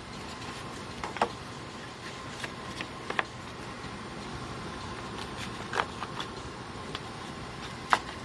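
A few scattered sharp clicks and knocks over a steady background hum, from handling an air filter and its return grille.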